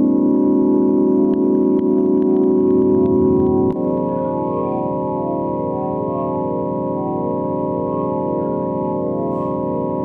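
Electronic 'space sound' drone: a sustained, organ-like chord of steady tones, with some upper notes pulsing slowly. A little under four seconds in, the lower notes shift and the chord turns slightly quieter.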